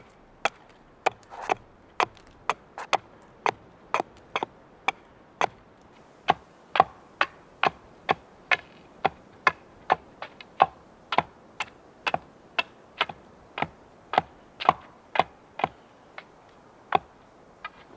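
Hatchet splitting kindling on a wooden chopping block: a steady series of sharp wooden knocks, about two a second.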